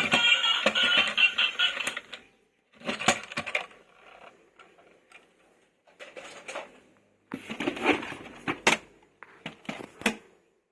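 Music that stops about two seconds in, then four short bursts of clattering with sharp clicks, as hard plastic toy vehicles are handled and knocked together.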